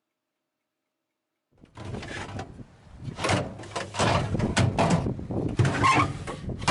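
Silence for about a second and a half, then a loud, irregular run of knocks, bumps and rubbing handling noises, like a door or drawer being worked and objects being moved.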